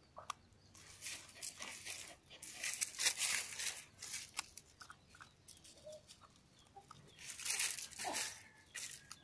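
A dog chewing and crunching a lizard it has caught, in irregular bursts of wet crunching and tearing.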